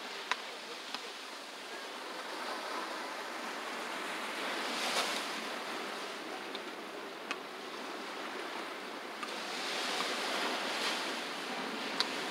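Ocean surf breaking and washing up on a sandy beach, the wash swelling about five seconds in and again near ten seconds, with a few short sharp ticks.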